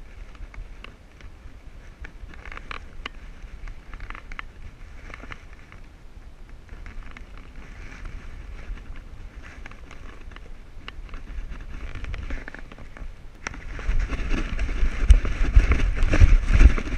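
The dog's footfalls and the rub and knock of a camera strapped to its back, over a low wind rumble. About 13 seconds in it turns much louder, with a fast run of thumps as the dog speeds up to a run.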